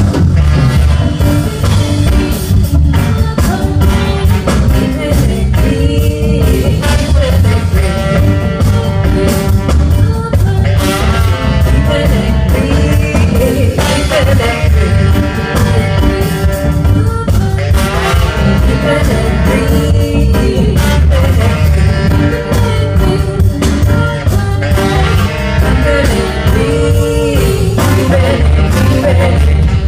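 A live rock band playing a song loudly through the PA, with heavy bass and drums and singing.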